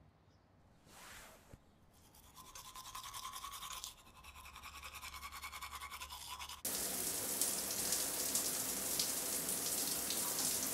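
Toothbrush scrubbing teeth in rapid back-and-forth strokes, then, about two-thirds of the way in, a shower spray running steadily and loudly until it cuts off at the end.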